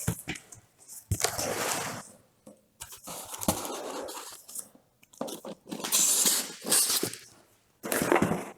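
Printer-kit packaging and bagged parts being handled: rustling and crinkling in several irregular bursts, each a second or two long, with a few small clicks and clatters.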